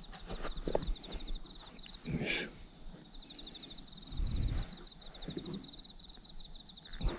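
Steady high-pitched insect chorus, with one insect trilling in quick pulses that stops and starts. A few soft knocks and rustles come and go beneath it.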